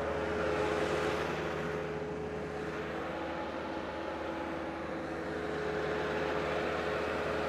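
Bobcat 863 skid steer's diesel engine running steadily, with a slight rise in level about a second in and again near the end.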